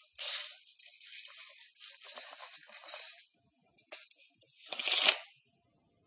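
Metal tape measure, its steel blade drawn out and run back in, giving a run of short rattling, sliding bursts, with one louder burst about five seconds in.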